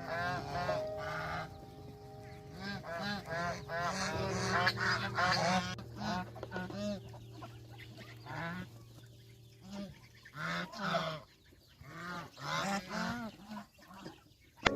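A flock of domestic geese honking, many short calls overlapping. The calls are dense through the first half and thin out into separate bursts with short gaps later.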